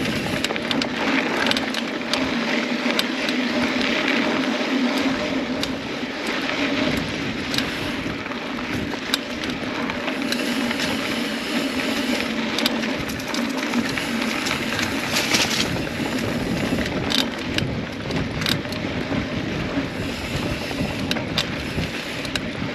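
Mountain bike riding over a dry dirt trail: steady tyre noise with frequent small clicks and rattles from the bike.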